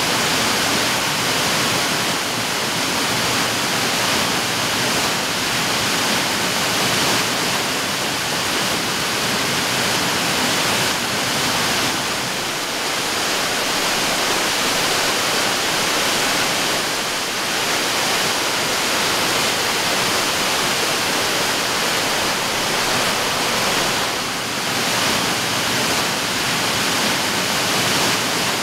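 Waterfall cascading down a steep, stepped rock face: a steady, even rush of falling water, heavy in hiss, dipping only slightly now and then.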